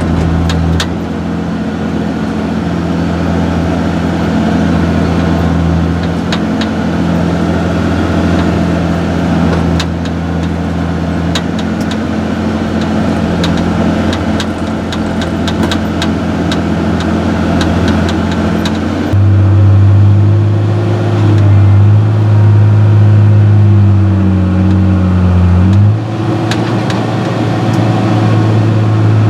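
John Deere 6068 six-cylinder diesel engine of a Fabtek 153 harvester running steadily, with scattered light clicks. About two-thirds of the way in the engine speeds up and gets louder, sags briefly near the end, then holds at the higher speed.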